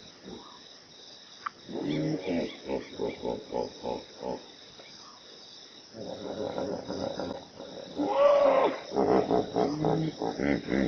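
Hippopotamus calling: runs of rapid, rhythmic grunts, about four a second, with a louder, drawn-out call about eight seconds in whose pitch rises and falls.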